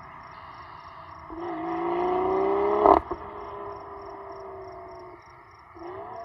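BMW X3 M40i's turbocharged straight-six exhaust with an aggressive BM3 burble tune. The engine revs up for about a second and a half, rising in pitch and loudness, and ends in a single loud exhaust crack, the tune's overrun pop, about three seconds in. It then settles to a steadier note with a short rev rise near the end.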